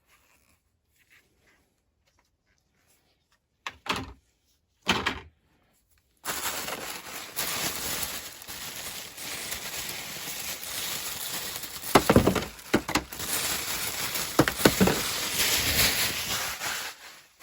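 Packing paper being unwrapped and crumpled, a dense crinkling and rustling with sharper crackles. Two brief handling knocks come first, then the crinkling starts abruptly and goes on until near the end.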